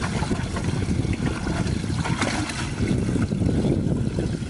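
Wind buffeting the microphone over water trickling and sloshing in a bass boat's livewell, with a few splashes as hands reach into the well for a fish.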